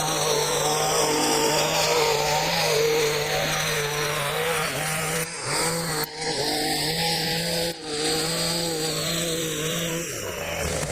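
Echo HC-150 hedge trimmer's small two-stroke engine running steadily at high speed, with a few brief breaks about five, six and eight seconds in.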